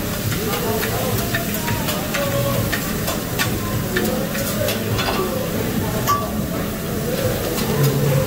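Meat and vegetables sizzling on a hot teppanyaki griddle, with a metal spatula scraping and clicking against the steel plate many times.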